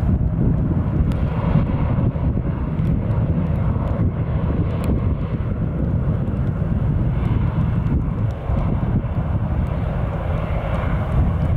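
An Airbus A380's four GP7270 turbofans running at taxi power: a steady, low jet rumble with a hiss above it.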